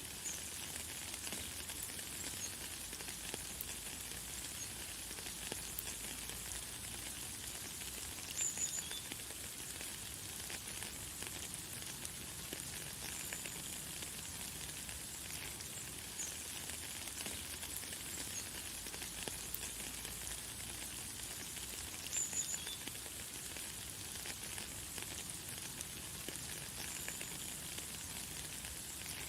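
Light, fine rain falling in a steady crackling hiss, with short high bird chirps now and then, two of them louder, about a third of the way in and about three-quarters of the way in.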